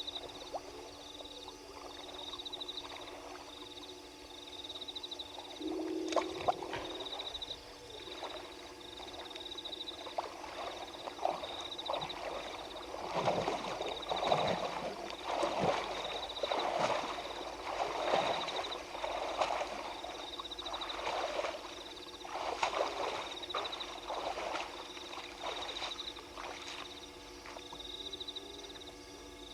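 Frog chorus at night: many overlapping croaking calls, thickest through the middle, over a continuous high, evenly pulsing trill.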